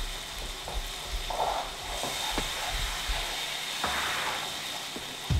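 Chilli-tomato sauce sizzling in a frying pan as a spatula stirs it, a steady hiss with a few light taps of the spatula against the pan.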